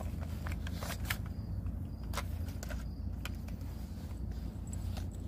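Close handling noise: scattered clicks and rustles as a toy rifle with a sling is handled next to the microphone, over a steady low rumble.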